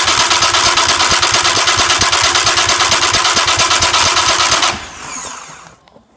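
A VW Polo 1.4 car starter motor cranking a 1996 Yamaha 20 hp two-stroke outboard: a loud steady whir with even, rapid compression pulses for about four and a half seconds. It then cuts off and winds down with a falling whine.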